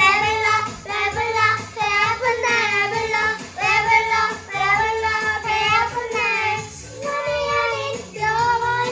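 Young children singing a Korean song together over backing music with a steady low beat.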